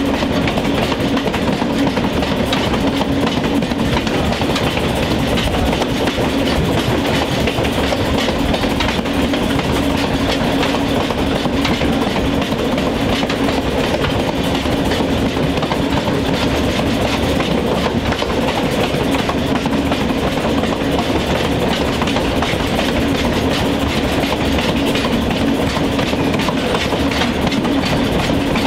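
Train rolling along the track: steady wheel-on-rail noise with clickety-clack over the rail joints and a constant hum, unchanging throughout.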